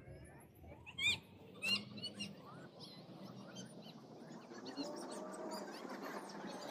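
Birds calling and chirping, with two louder calls about a second and a second and a half in, over a steady background hum.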